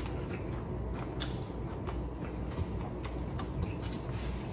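A person chewing a mouthful of food, with a few faint short clicks scattered through it.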